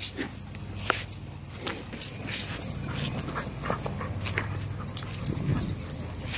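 Several dogs playing rough over a ring toy, with short dog vocal sounds scattered through and a brief louder low sound about five seconds in, over a steady low hum.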